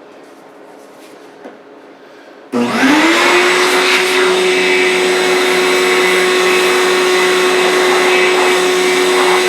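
Electric sander switched on about two and a half seconds in, spinning up quickly and then running steadily at a loud, even hum. It is sanding the dried paint off the face of a carved wooden sign to reveal the raised letters.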